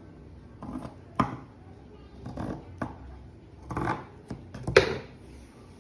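Scissors cutting through cotton t-shirt fabric: a series of about six separate snips at an uneven pace, the loudest one near the end.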